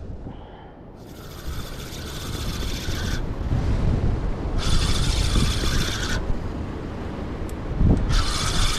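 Fishing reel being cranked in three spells of a second or two, its gears whirring, as a hooked ray is reeled in, over a steady low rush of wind and surf. One dull thump comes just before the last spell.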